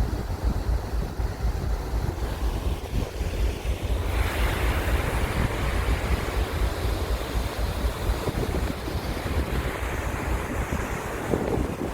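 Sea surf washing in, with heavy wind buffeting on the microphone; a wave breaks about four seconds in and its hiss carries on.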